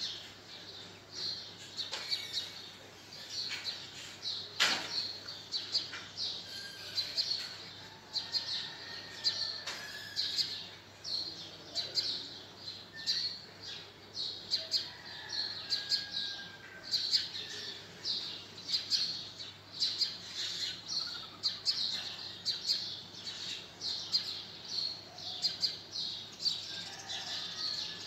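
Small birds chirping over and over, a steady run of short high chirps with a few fainter, longer whistled notes.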